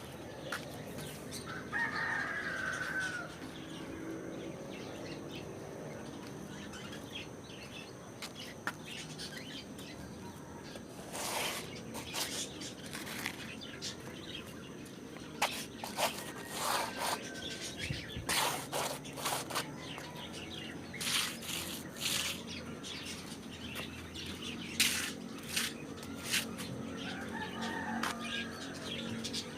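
A rooster crows about two seconds in and again near the end, over faint birdsong, with scattered short crackling or rustling noises in between.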